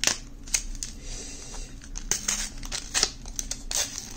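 Paper-and-plastic blister sleeve of a Pokémon booster pack being torn and pulled apart by hand: a run of irregular crinkles and rips, a few of them sharper.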